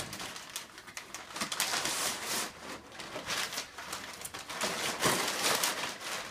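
Packing paper rustling and crinkling in irregular bursts as a dog roots through a box full of it.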